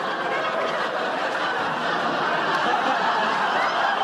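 Studio audience laughing steadily, a dense crowd laugh.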